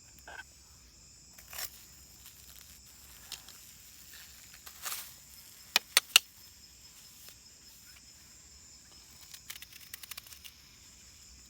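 Insects chirring steadily in a high, even band, with scattered sharp clicks and knocks; a quick run of three loud clicks about six seconds in is the loudest sound.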